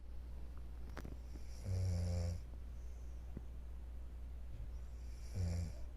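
A woman snoring in deep sleep: two long snores about three and a half seconds apart, over a low steady hum.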